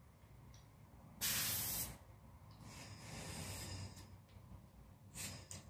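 Bursts of compressed air hissing at a bicycle tyre valve as the tyre is inflated: a loud hiss about a second in, a softer, longer one after it, and a few short bursts near the end.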